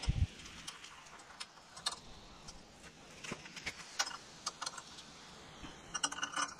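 Scattered small metallic clicks and taps of bolts, bracket and hardware being handled and fitted while a light bar is fastened to a riding mower's front end. There is a dull thump right at the start and a quick run of clicks near the end.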